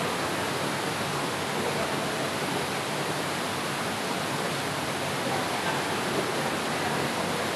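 Steady rushing of flowing water, like a river running over rocks, holding at an even level throughout.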